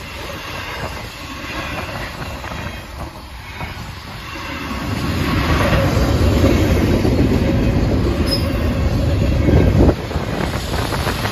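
Double-stack intermodal freight train's container well cars rolling past, their wheels rumbling and clattering on the rails. The rumble builds louder about halfway through and drops off suddenly near the end.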